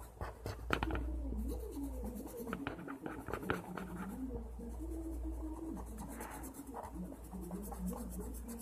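Felt-tip marker scribbling back and forth on paper, colouring in an area with quick, irregular scratchy strokes over a steady low hum.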